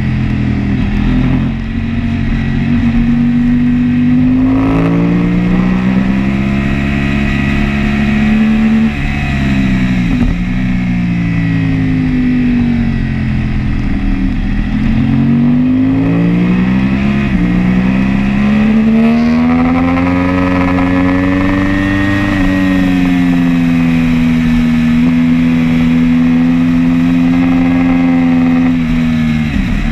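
Sport motorcycle engine at racing speed on a circuit, revs climbing and dropping through repeated gear changes in the first half, then held high and fairly steady through a long fast stretch before dropping sharply near the end.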